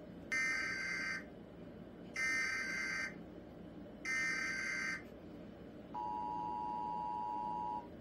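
Emergency Alert System header: three short bursts of screeching digital data tones, about a second each, followed by the steady two-tone EAS attention signal held for about two seconds.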